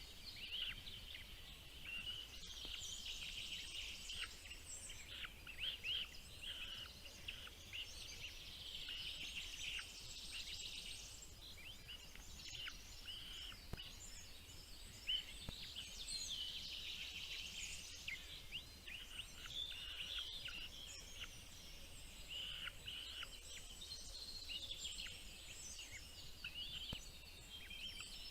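Small birds chirping continuously, many short high calls, at times dense and overlapping.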